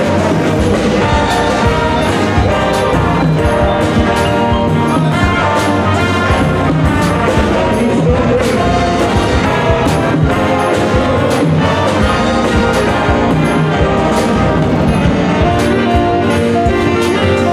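A live big band playing, with saxophone, trombone and trumpet sections over a drum kit keeping a steady beat.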